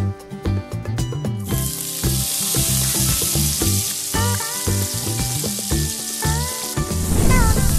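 Hot oil in a kadai starts sizzling about a second and a half in as tomato pieces are dropped into it, and keeps frying steadily. Background music with a steady beat runs underneath.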